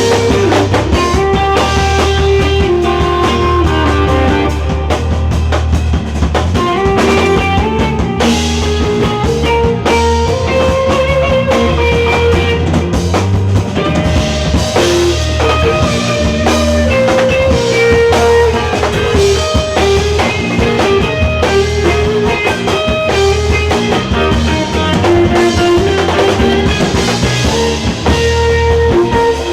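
A band playing live, with drum kit and guitar over a moving melodic line, loud and continuous.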